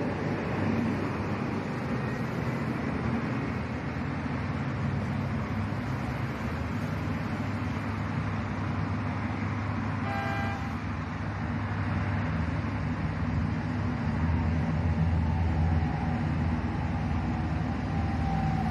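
Steady rumble of vehicle engines and traffic, with a short horn toot about ten seconds in.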